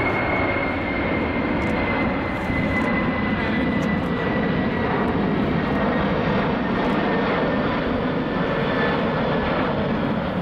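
Boeing 747-400 airliner climbing away overhead: the loud, steady rumble of its four jet engines, with a thin high whine that slowly falls in pitch as it recedes.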